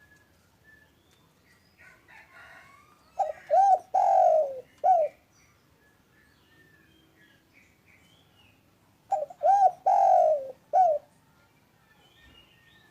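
Spotted dove (derkuku) cooing: two phrases about six seconds apart, each a few short coos and one longer drawn-out coo. Faint chirps of small birds in the background.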